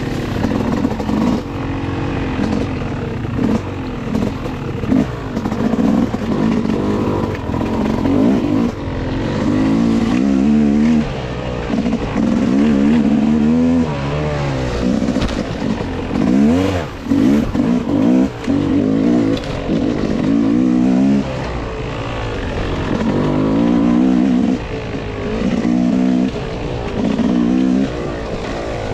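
Dirt bike engine revving up and down again and again, its pitch rising and falling with the throttle, with short drops in between.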